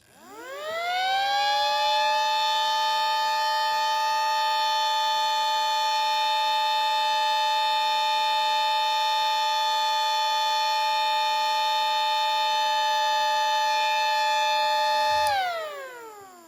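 Miniature WW2-style air raid siren with a 7/10 port rotor, running on AA batteries and sounding two tones at once. It winds up over about two seconds, holds a steady wail for about thirteen seconds, then winds down near the end, falling in pitch as it fades.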